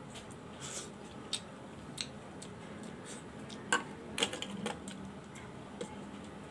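Scattered light clicks and taps of boiled scallop shells being handled and pried open by hand, with a cluster of sharper clicks a little past halfway.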